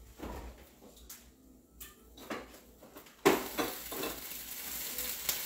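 Kitchen sounds: a few faint clinks of dishes and utensils. About three seconds in, a knock is followed by a steady hiss that starts suddenly and keeps on, with fine crackling in it.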